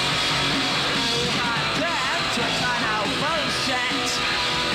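Punk rock band playing at full volume: distorted electric guitar over bass and drums.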